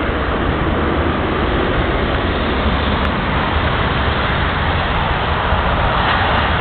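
Boeing 737-400's CFM56 turbofan engines during touchdown and landing rollout: a loud, steady jet rumble and hiss. Gusty wind rumbles on the microphone underneath.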